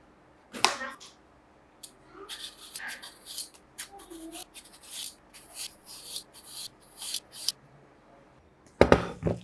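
A knife chops once on a bamboo chopping board, then a Y-shaped vegetable peeler scrapes the skin off a pointed gourd (potol) in a run of quick strokes. A loud thump on the board comes near the end.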